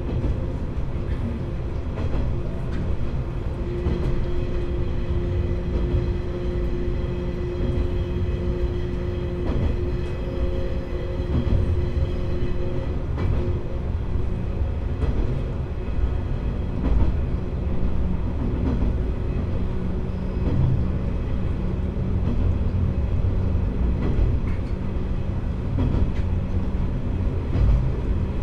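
Diesel railcar under way: a steady engine drone with wheel-and-rail rumble and occasional sharp clicks from the track. The engine's note shifts about halfway through.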